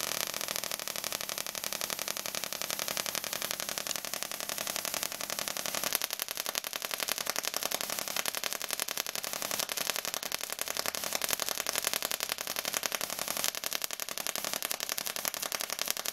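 Small half-bridge solid-state Tesla coil arcing from its foil-covered topload to a hand-held wire: a rapid, evenly spaced crackling buzz of sparks, set by the interrupter's pulse rate.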